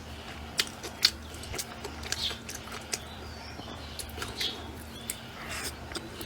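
A person chewing food, with several sharp clicks scattered through.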